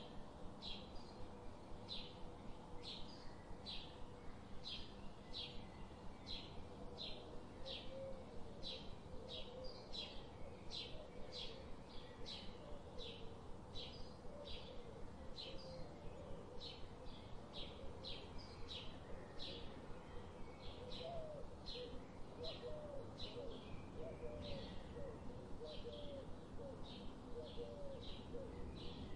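A bird chirping over and over in short, evenly spaced high chirps, about two a second. From about eight seconds in, a second, lower wavering bird call joins it.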